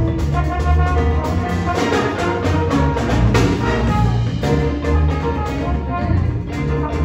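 Jazz band playing, with horns, piano and drums over a repeating low bass line.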